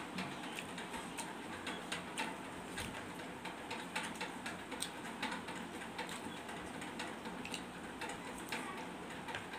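Close-up eating sounds: a hand squishing and scooping watery fermented rice, and wet chewing with irregular mouth clicks and smacks, over a steady background hiss.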